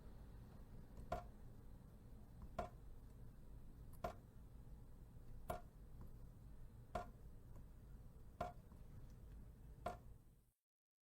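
Water drops falling one at a time in a slow, even rhythm, about one drip every second and a half, each a short plop. The dripping stops shortly before the end.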